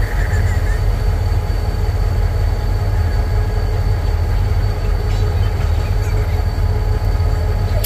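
Diesel locomotive engine running, a loud, steady deep drone with a few faint steady tones above it.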